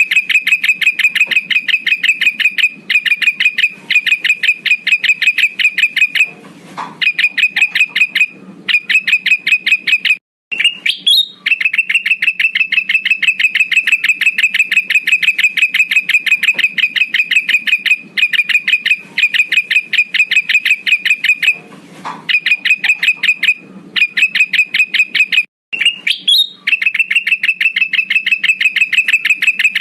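Lure-call recording of a male kutilang emas bulbul: a fast, even trill of sharp notes at one steady pitch, running in long bouts broken by brief pauses, looped.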